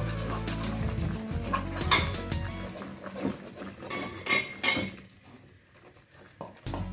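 Metal spoon scraping and clinking against a kadai as besan is stirred into hot ghee. There are a few sharper clinks about two seconds in and twice around four and a half seconds.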